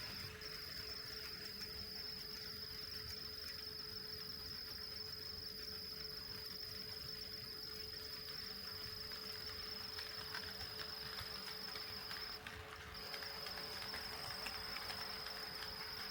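HO-scale model train running on the layout, its KATO D51 steam locomotive model giving a steady high-pitched whine that cuts out briefly about three-quarters of the way through, with faint ticks in the later part.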